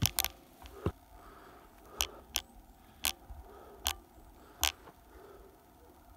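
Hiker's footsteps on a dirt and leaf-litter forest trail: a run of sharp steps, mostly about 0.8 s apart, that stops about five seconds in.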